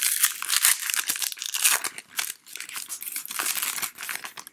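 Wrapper of a 2018 Donruss baseball card pack being torn open and crinkled: a dense run of crackling that stops just before the end.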